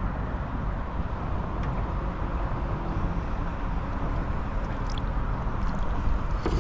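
Steady rushing noise in a small open boat, strongest in the low end and without distinct events: wind buffeting the microphone over water.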